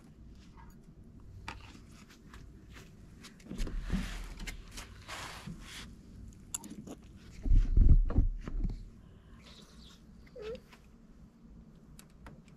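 Rustles, clinks and knocks from handling a bowl and spoon as rice is tipped into leftover ramen broth, with a loud low bump about eight seconds in. Slurping and chewing of the noodles and rice come near the end.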